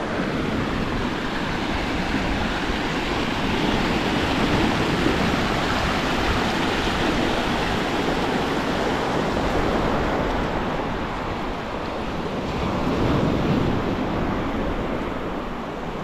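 Steady rush of water where a river meets the sea, surf and river current together, with wind rumbling on the microphone.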